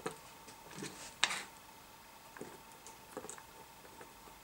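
Small clicks and fumbling of fingers handling a plastic servo connector plug and its leads, the sharpest click about a second in and a few lighter ones after. A faint steady tone sits underneath.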